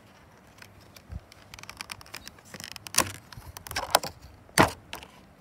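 Crackling and crinkling of a plastic stomp pad and its paper backing being handled and peeled apart: scattered small clicks, thickening in the second half, with three louder crackles.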